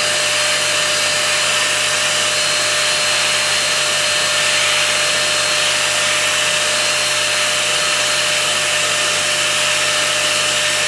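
Ultenic P30 Combo pet-grooming vacuum running steadily with its brush head on a dog's coat: a constant suction hiss with a steady motor whine.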